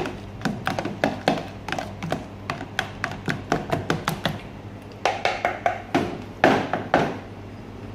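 A utensil beating egg-and-parmesan batter in a plastic tub: a fast, even run of taps against the container, about four a second. A few louder knocks follow near the end.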